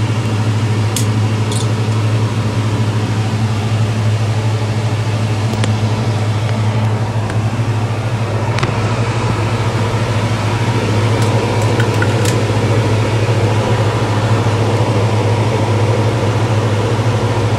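BlackStone skate-sharpening machine running steadily: a constant low motor hum with a few light ticks.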